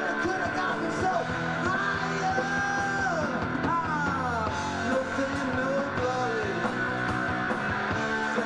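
Live rock band playing electric guitar, bass guitar and drums, with notes that slide and bend about halfway through.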